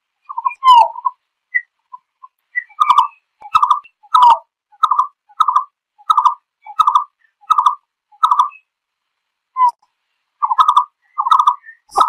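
Green-billed malkoha calling to its flock: a series of short, clipped notes, about one and a half a second, with a few scattered notes at first and a brief pause near the end.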